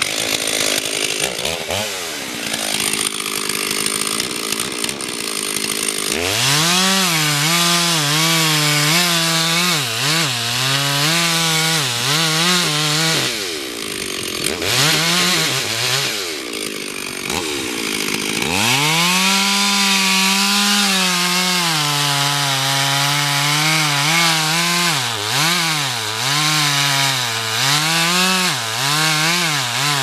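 Stihl two-stroke chainsaw at full throttle cutting into the base of a tree trunk, its engine pitch dipping and recovering as the chain loads up in the wood. Twice, about midway, the revs drop off and climb back up before the saw settles into a long steady cut.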